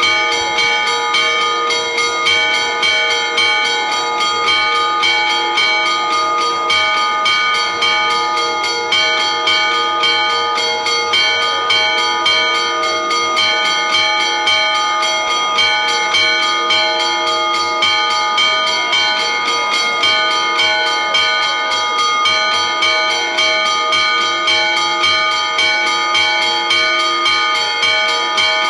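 Church bells, several of different pitches, ringing together in a quick, steady run of strokes without a pause: festive ringing for a saint's feast.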